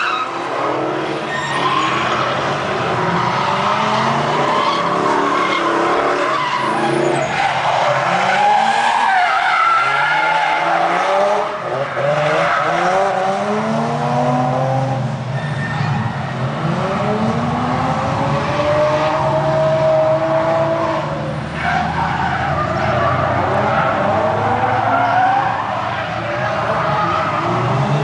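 Drift cars' engines revving up and down hard, over and over, with tyres skidding as the cars slide sideways.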